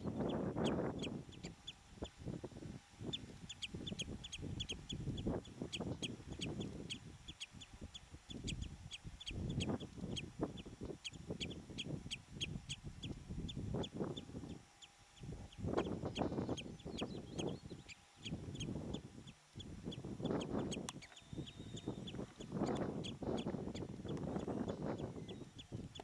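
Common redshank calling: a long run of short, sharp notes repeated evenly, about three or four a second, thinning out after the middle. Gusts of wind rumble on the microphone throughout.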